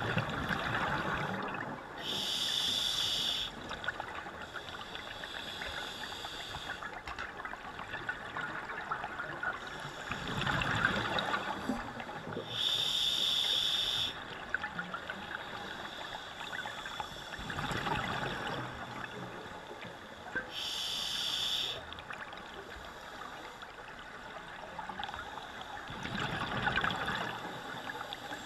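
Scuba diver breathing through an open-circuit regulator underwater. Each breath is a short hiss of air through the demand valve on the inhale and a gurgling burst of exhaled bubbles, repeating about every eight seconds.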